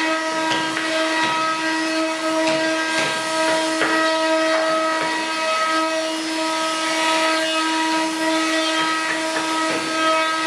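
Multi-spindle CNC router with rotary axes running: its spindles whine steadily at several pitches over a rasping cutting noise as the bits carve wood blanks, with scattered short ticks.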